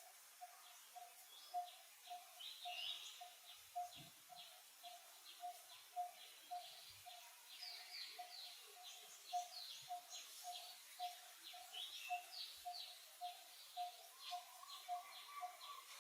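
Faint wild birdsong: a short low note repeats steadily about twice a second while quick high chirps come and go above it.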